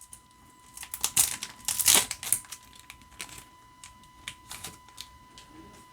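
Foil Pokémon booster pack wrapper crinkling and rustling as it is opened, with irregular clicks and snaps, the loudest about one to two seconds in.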